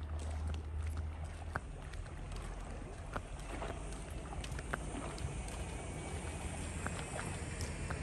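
Footsteps, with a few light irregular clicks, over a steady low rumble.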